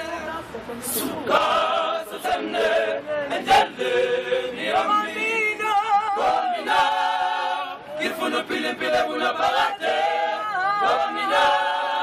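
A choir of young men and boys singing unaccompanied in several-part harmony, phrase after phrase, with a sharp knock about three and a half seconds in.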